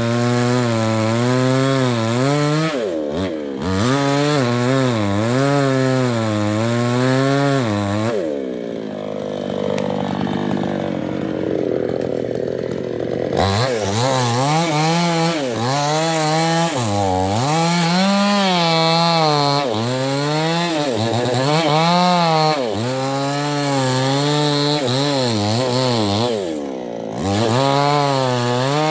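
New West 628 two-stroke chainsaw with a 24-inch bar cutting into the trunk of a large sengon tree, its engine pitch dipping and rising again and again as the chain bogs in the wood and recovers. From about eight to thirteen seconds in it drops to lower revs, then revs back up and cuts again.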